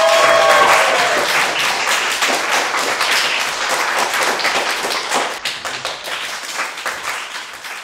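A small audience clapping, the applause thinning and dying away toward the end.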